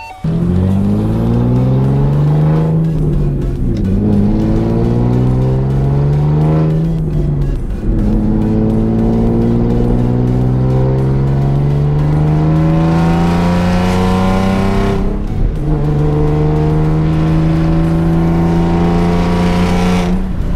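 Ford Mustang (S197) with a newly installed aftermarket exhaust accelerating through the gears. The exhaust note climbs steadily in pitch, dips briefly at each upshift, then climbs again, with several shifts.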